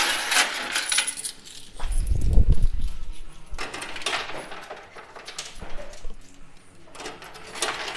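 Metal coins clinking and clattering in a coin pusher arcade machine, in short scattered bursts, with a heavier low rumble of coins and machinery about two seconds in.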